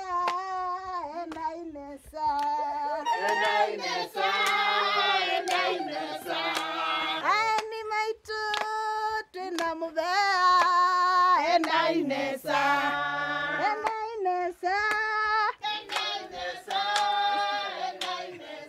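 A group of women, men and children singing together with hand clapping.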